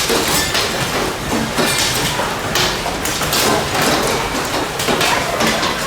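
Large hailstones pelting hard surfaces: a dense, irregular clatter of sharp impacts.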